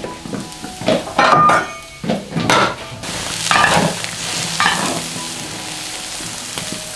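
Okra pods tipped into a wok of boiling water, then a spatula stirring and scraping through them in the wok: a run of swishing, scraping strokes over the first few seconds, settling into a steady hiss of the boiling water.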